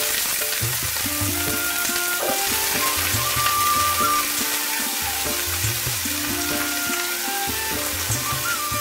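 Potato, eggplant and carrot pieces sizzling steadily in hot oil in a deep pan, with instrumental music playing underneath.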